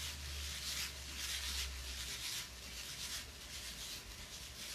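Wooden spatula stirring and tossing fried rice in a pan, a series of soft, irregular scrapes. A low hum under it fades out about halfway through.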